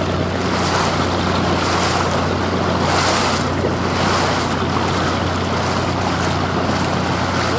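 Performance powerboat's engine idling along at no-wake speed, a steady low rumble, with water hissing and washing around the hull and wind on the microphone.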